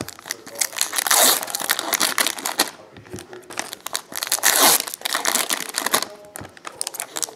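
Wrappers of 2016-17 Fleer Showcase hockey card packs being torn open and crinkled by hand, in several bursts with short pauses between.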